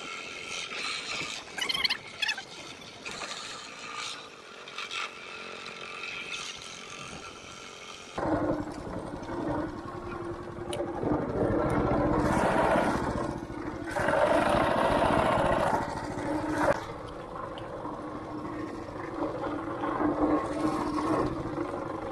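Small boat's motor running with the boat under way, with water and wind noise along the hull. About eight seconds in, the motor sound becomes fuller and louder, with a steady low hum.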